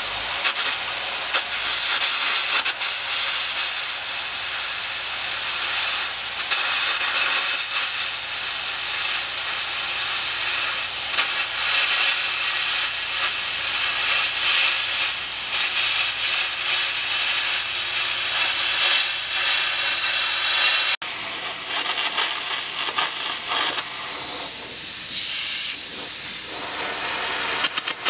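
Air carbon arc gouging: a copper-coated carbon rod arcing on steel while a jet of compressed air blows the molten metal away, a loud steady hiss. It breaks off briefly about two-thirds of the way through, then goes on.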